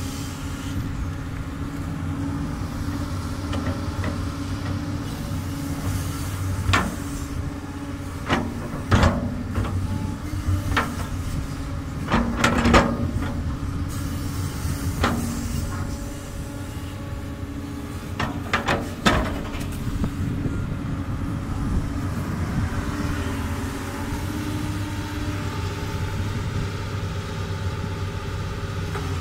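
Doosan DX200 crawler excavator's diesel engine running steadily, with a scattering of sharp metal clanks from the working machine through the middle, several in quick succession.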